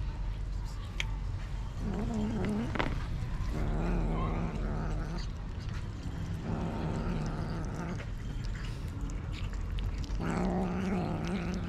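A cat giving four low, drawn-out yowls, each about a second long, with short pauses between them.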